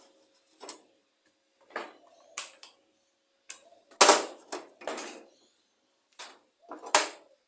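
Metal tools and parts clinking and clanking on a lawn mower engine as its fuel tank is unbolted. There are about eight separate irregular knocks, loudest about four seconds in and again near the end.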